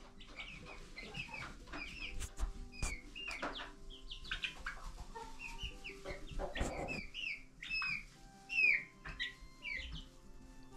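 Young chickens in a brooder, peeping and clucking with many short, high chirps. There is a short burst of noise about six and a half seconds in.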